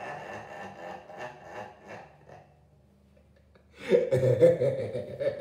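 A man laughing heartily and trailing off, then, after a short pause, laughing loudly again about four seconds in.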